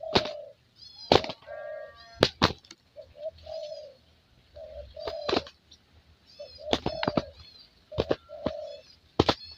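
Spotted dove (tekukur) cooing in short repeated phrases of low notes. Sharp clicks fall between the phrases, and high short chirps recur throughout.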